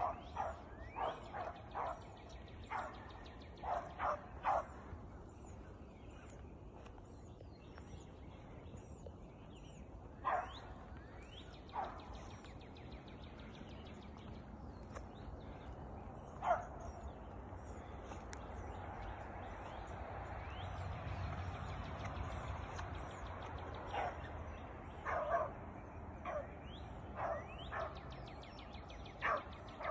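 Beagle baying on a rabbit's trail, barking in scattered bursts, several in quick succession at the start and again near the end. Birds chirp faintly throughout, and a steady rushing noise swells for a few seconds in the middle.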